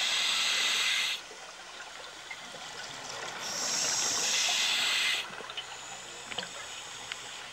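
Scuba diver breathing underwater through a regulator: two long hissing breaths about three seconds apart, with quieter bubbling and a few faint clicks between them.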